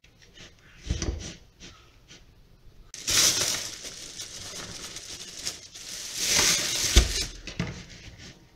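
A metal spoon knocks and scrapes in a plastic bowl of crumbly dough about a second in. Then comes about four seconds of loud plastic-bag rustling and crinkling, ending in a thud.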